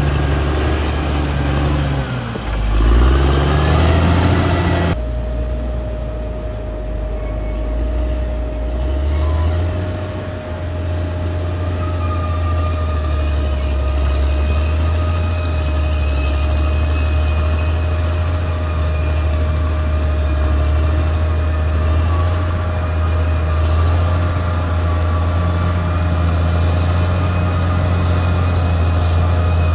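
Caterpillar D6R XL bulldozer's diesel engine running, its engine speed dipping and picking back up about two to three seconds in. About five seconds in the sound changes abruptly to a steady heavy hum with a constant high whine over it.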